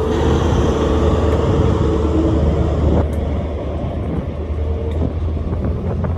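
A train passing close by on the main line: a loud, steady low rumble with a held tone that fades about halfway through.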